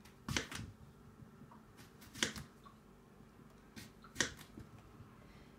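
Kitchen knife slicing through an apple and knocking down onto a cutting board: a few short, sharp knocks, the louder ones about two seconds apart.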